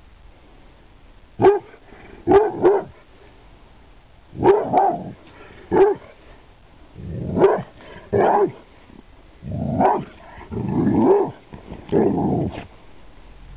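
Pit bull barking: about a dozen deep barks in irregular groups of one to three, with pauses between, a few of them drawn out longer.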